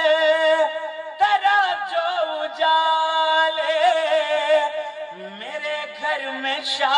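A man singing a line of a manqabat, an Urdu devotional poem, drawing out long held notes with wavering, ornamented pitch.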